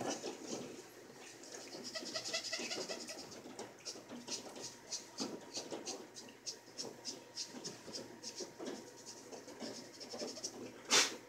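Pool cue tip being chalked: a long run of quick, light scratching strokes, with one sharp knock near the end.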